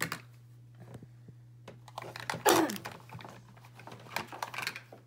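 Plastic makeup compacts and containers clicking and clattering as hands rummage through a makeup bag, with one louder burst about halfway through.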